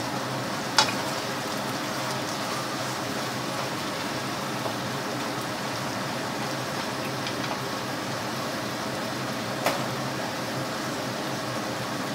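Beef and green vegetables sizzling steadily in a frying pan while being stirred with a wooden spoon, with two sharp knocks of the spoon against the pan, one about a second in and one near the end.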